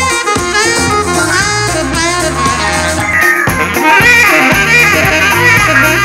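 Jazzy music with saxophone, brass and drum kit, played through a portable Bluetooth speaker and recorded by a microphone for a sound test. About three and a half seconds in, the sound changes and gets a little louder as playback moves from a cylindrical speaker to a boxy retro-style speaker.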